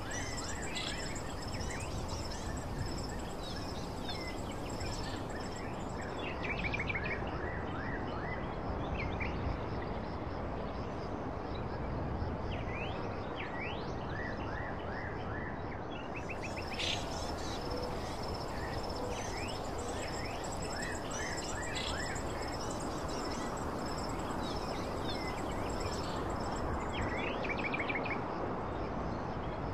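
Outdoor ambience of birds chirping in short repeated calls, with a steady high-pitched insect trill and a constant background hiss.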